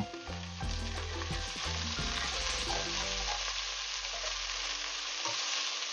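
Boneless chicken thigh pieces sizzling steadily as they brown in hot oil in a pot, while metal tongs turn them over.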